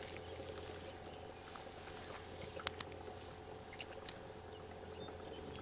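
Quiet outdoor background with a steady low hum, and two sharp little clicks in quick succession about two and a half seconds in, from the small trout and tackle being handled in a cloth towel.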